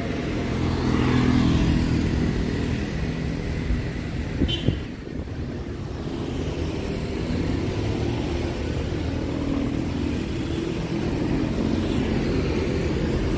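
Street traffic: cars and motorbikes driving past, their engines rising and falling, with a few sharp knocks about four and a half seconds in.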